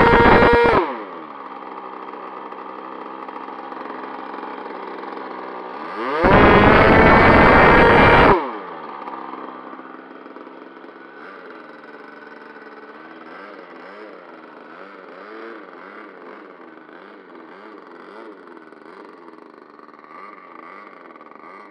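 Thunder Tiger Pro 46 nitro glow engine with tuned pipe on an RC jet screaming at full throttle, then throttled back to idle about a second in. It is run up to full throttle again for about two seconds, then drops back to a quieter idle whose pitch wavers for the rest of the time.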